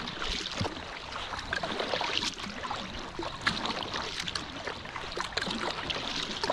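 Packraft paddling on a lake: the paddle blades dipping into the water, with water splashing and trickling off the blades between strokes.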